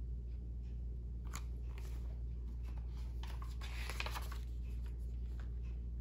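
Pages of a paperback children's book being turned and handled: faint paper rustles and light ticks, one about a second in and a cluster in the middle. A steady low hum lies underneath.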